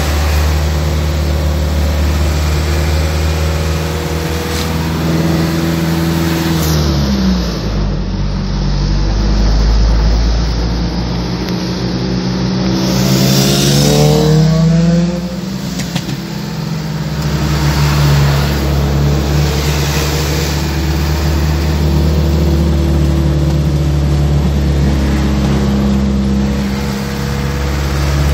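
Vehicle engine and road noise heard from inside the cabin while driving at highway speed. The engine's pitch drops about seven seconds in, then climbs again around the middle as the vehicle accelerates.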